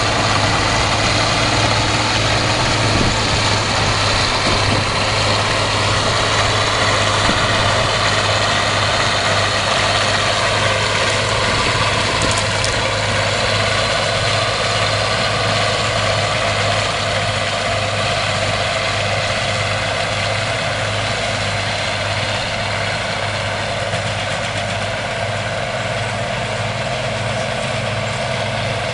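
Bizon Z056 combine harvester running while harvesting grain: a steady diesel engine drone under a dense rattle of working machinery, slowly growing a little quieter as the combine moves away.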